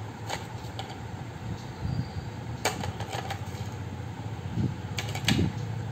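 A few sharp clicks and taps from handling a paint brush, paint pot and potato stamp, the loudest about two-thirds of a second apart near the end. They sit over a steady low background rumble.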